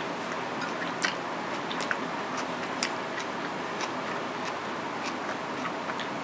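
A few small, sharp clicks, scattered irregularly and loudest about a second in, from eating a vegetable-filled flatbread wrap over a plate, over a steady background hiss.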